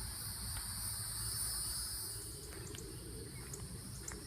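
Steady high-pitched drone of an insect chorus, with a faint low rumble beneath.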